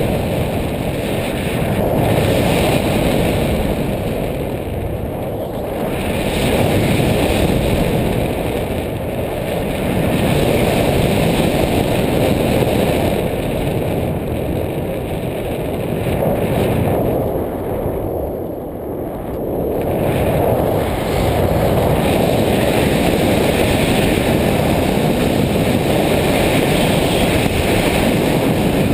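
Loud rush of wind on a paraglider pilot's camera microphone in flight, swelling and easing every few seconds as the wing swings through acro turns and wingovers.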